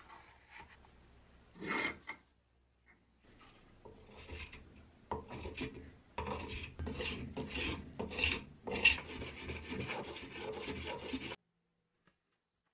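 Hand rasp scraping across the wooden body of a spirit level. After a few scattered strokes it settles into quick back-and-forth strokes, about two or three a second, from about five seconds in, and stops abruptly near the end.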